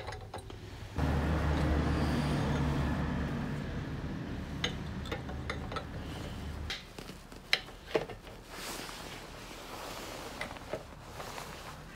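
A low, steady engine hum starts about a second in, fades, and cuts off before the seven-second mark. Scattered sharp metal clicks come as an air compressor's cylinder liner and piston are handled and fitted back onto the crankcase.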